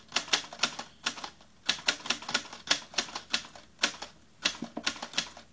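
Typewriter keys clacking: about twenty sharp strokes in uneven quick runs with brief pauses between them.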